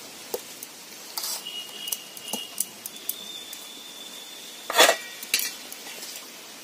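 Kitchen dishes clinking as a cover is set over the bowl of batter: scattered light clinks and knocks with a thin ringing, and one loud clatter a little under five seconds in.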